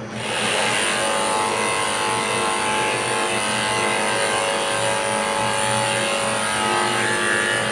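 Corded electric pet clipper running steadily as it trims a Pomeranian's coat: a level motor hum.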